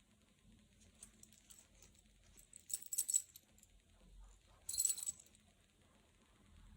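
Gold chain jingling and clinking as it is handled: a few light clinks, then two louder jingling shakes, about three and five seconds in.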